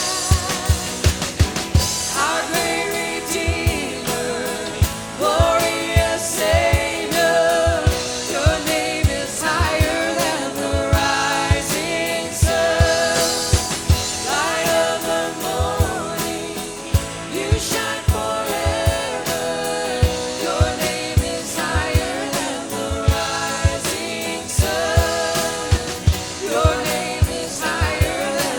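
Contemporary worship song played by a band with singers, a drum kit keeping a steady beat of about two kick-drum hits a second under the sung melody.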